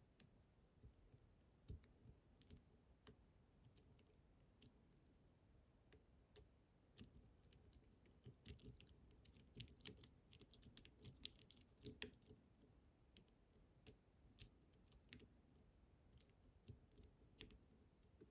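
Faint, irregular metallic clicks of a lock pick working the tumblers inside a Fichet F3D lock cylinder. The clicks come thickest around the middle.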